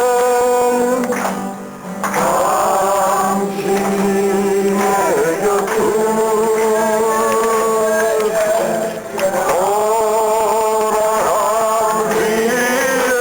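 Live folk song: a singing voice holding long, drawn-out notes, with short breaks for breath about two seconds in and about nine seconds in.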